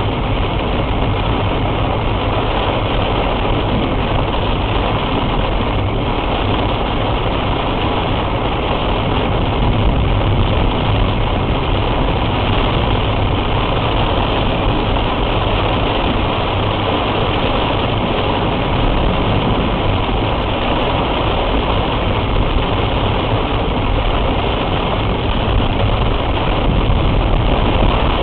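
Car engine running steadily under a dense, even hiss of heavy rain on the car, heard through a dashcam inside the vehicle.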